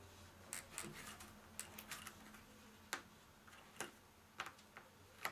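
Faint, irregular small clicks and taps, about ten, as fingers press and handle pieces of red double-sided foam tape on the back of a picture frame.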